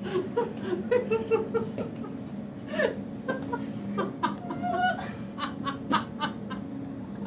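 Two women laughing together in short, broken bursts.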